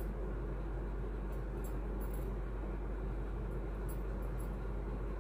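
Steady low hum and hiss of room background noise, with a few faint light ticks from small objects being handled around a second and a half in and again near four seconds.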